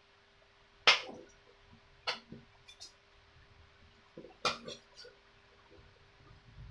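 A handful of sharp metallic clicks and taps from table fan motor parts and tools being handled and set down. The loudest comes about a second in, with others near two, three and four and a half seconds.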